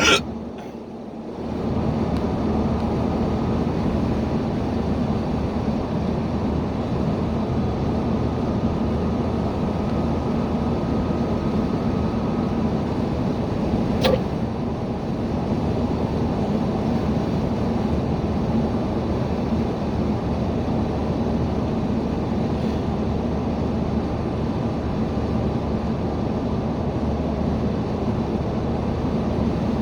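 Steady road and engine noise inside a moving car. A loud sudden sound comes right at the start, and a single short, sharp hiccup comes about halfway through.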